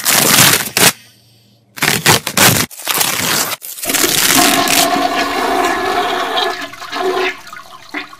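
A toilet flushing: a few short rushes of water, then a long steady rush with a held tone that dies away near the end.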